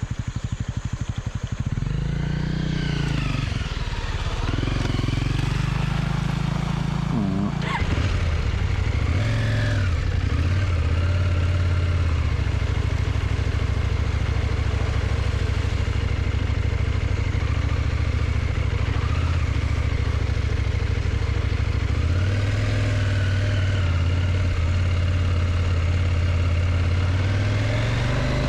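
KTM motorcycle engine revving up through the gears as the bike pulls away, then running steadily at speed, with shifts in the engine note about halfway through and again near the end.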